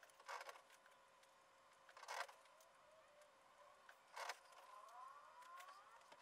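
Near silence: quiet room tone with a faint steady hum, three brief soft hisses about two seconds apart, and faint rising wails over the last second or so.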